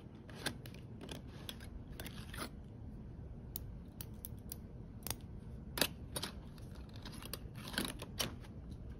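Metal ring-handled scissors and clamps clicking and clinking against each other as a hand handles them in a canvas tool bag's pocket. The sharp clicks come irregularly, with the loudest near the middle and a cluster near the end.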